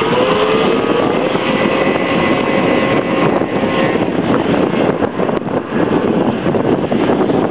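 Formula 340 vintage two-stroke racing snowmobiles launching from the start line, engine pitch rising as they accelerate, then fading after about three and a half seconds as they pull away. Strong wind buffets the microphone throughout.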